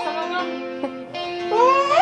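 Background music: a song holding a long steady note, which slides upward near the end.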